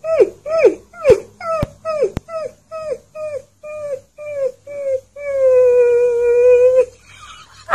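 A fluffy husky-type puppy howling: a run of about a dozen short yips, each dropping in pitch, two or three a second, then one long steady howl about five seconds in.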